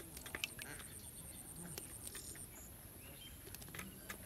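Faint outdoor ambience with a steady high-pitched insect-like whine, short bird chirps, and a few sharp light clicks near the start and again near the end.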